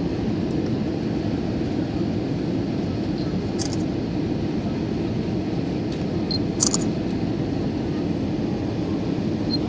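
Steady cabin roar of an Airbus A320 on its descent to land, heard from a window seat beside the engine: an even, low rush of engine and airflow. A few short clicks sound over it, the sharpest about two-thirds of the way through.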